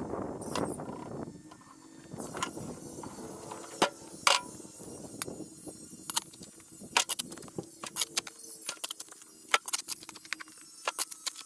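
Sped-up digging with a shovel: a brief scrape through soil, then a scatter of quick, sharp clinks and ticks over a faint steady hum.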